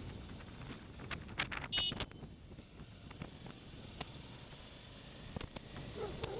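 Faint wind and riding noise on a motorcycle helmet camera's microphone, with scattered clicks and a brief high squeak about two seconds in. The sound cuts off at the end.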